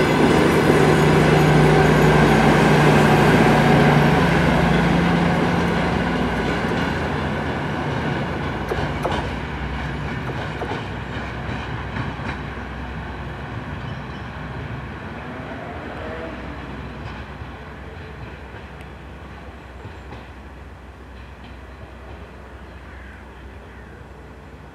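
DR1AC diesel multiple unit pulling away, its diesel engine hum and wheel noise on the rails loud at first, then fading steadily as the train recedes into the distance.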